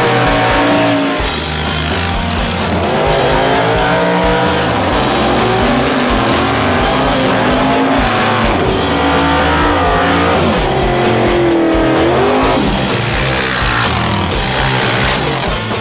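Drag-racing cars' engines revving and tyres spinning through burnouts, mixed with rock music.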